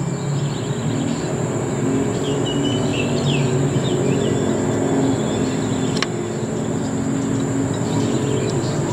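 Outdoor ambience: a steady low motor or traffic hum under a constant high insect drone, with a few short bird chirps a couple of seconds in and a single sharp click about six seconds in.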